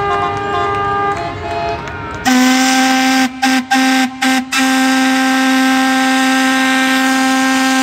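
Boat horns sounding across the harbour. Several horns of different pitches overlap at first. About two seconds in, a single loud, lower horn takes over, breaks off four times in quick succession, then is held steadily until it cuts off near the end.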